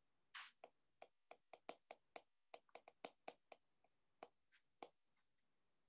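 Faint, irregular clicks of a stylus tip tapping on a tablet's glass screen during handwriting, a few a second, with one brief soft hiss about half a second in.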